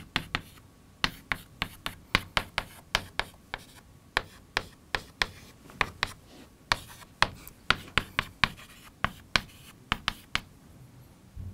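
Chalk writing on a blackboard: an irregular run of sharp taps and short scratches, about two to three a second, as an equation and a column of letters are chalked up, with a brief lull near the end.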